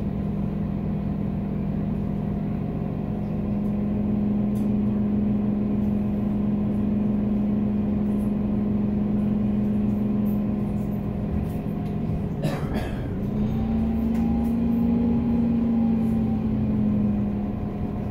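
Engine of a Solaris Urbino 12 CNG city bus running, a steady low hum heard from inside the passenger cabin. About twelve seconds in there is a short burst of noise, after which the engine note rises a little and eases back.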